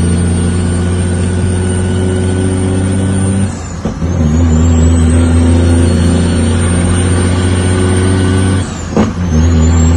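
Heavy truck's diesel engine pulling hard on the road, heard from inside the cab. The engine drops away briefly twice, about a third of the way in and again near the end, as gears are shifted, then pulls again each time. A high whistle falls at each shift and climbs back.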